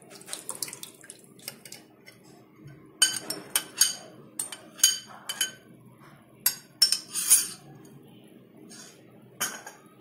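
A steel spoon clinking and scraping against a glass bowl and a steel pan as thick curd is scraped out of the bowl into the pan. It gives a run of sharp, ringing clinks, bunched about three seconds in and again around seven seconds, with one more near the end.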